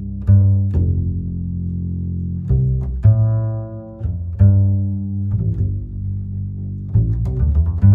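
Slow, calm instrumental music in a low register: deep string-like notes, each starting sharply and left to ring, one after another every second or so.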